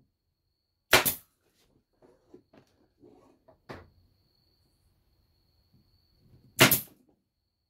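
Pneumatic stapler firing staples into a wooden cabinet door frame: two sharp shots, about a second in and again near the end, with a few light knocks of the tool being handled in between.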